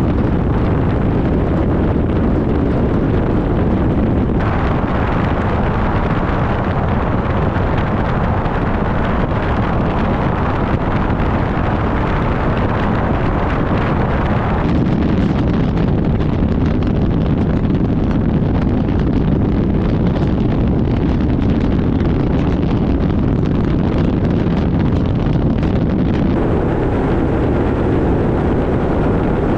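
2025 BMW M5 driving at speed, heard from a camera mounted on the car's body: a steady rush of wind on the microphone and tyre and road noise. The sound changes abruptly in tone three times.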